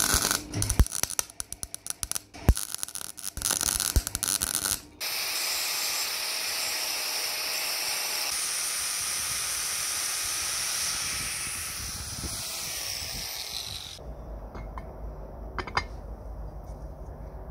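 Welding arc crackling in irregular bursts for about five seconds, then an angle grinder grinding down the weld on the cast iron juicer body, a steady hiss that stops about fourteen seconds in. After that there is a low hum with a few light clicks and knocks.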